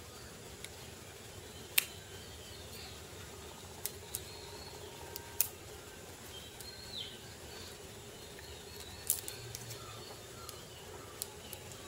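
Plastic toy train track pieces clicking against each other and tapping on a hard tiled floor as they are fitted together: a handful of sharp, separate clicks several seconds apart. Faint bird chirps sound in the background.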